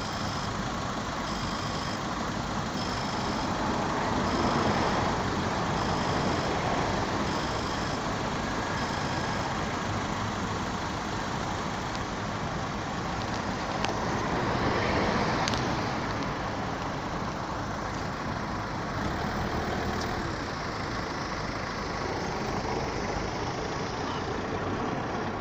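Railroad crossing warning signal sounding a high electronic tone about once a second, which stops about ten seconds in. Under it runs a steady rumble of vehicle engines that swells twice.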